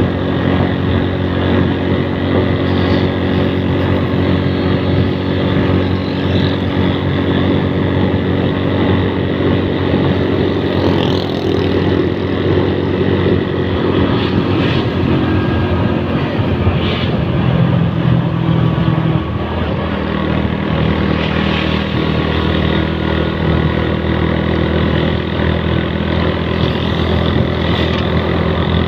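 Engine of a moving road vehicle heard on board, running steadily at cruising speed with road and wind noise; its note shifts about two-thirds of the way through.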